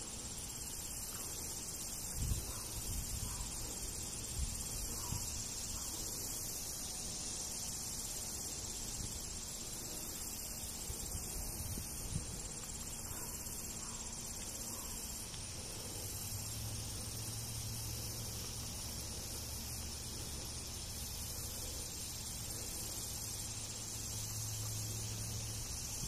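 Steady chorus of insects, an even high-pitched drone with a faint regular pulse. A low hum joins about two-thirds of the way in and stops near the end.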